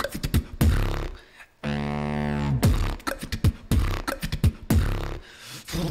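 Solo beatboxing into a microphone: rapid, sharp kick- and snare-like mouth percussion, broken about two seconds in by a held low bass note lasting about a second, then more quick percussive hits.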